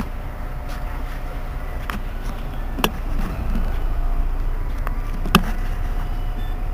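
Irisbus Iveco Citelis 18 articulated city bus idling at a standstill: a steady low engine rumble with a faint steady tone above it. A few sharp clicks are heard, the loudest about five seconds in.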